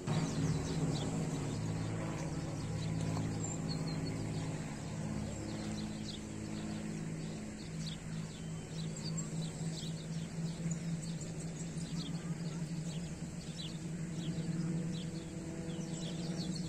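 Birds chirping in quick short calls over a steady low hum from a motor.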